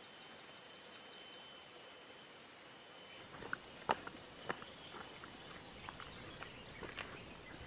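Insects chirring in a steady high drone, with a few soft footsteps on a dirt path about halfway through.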